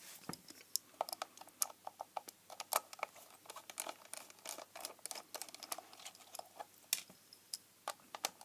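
Small precision screwdriver undoing the screws that hold on a plastic battery-compartment base, with the case handled in the hand: a run of light, irregular clicks and ticks, several a second.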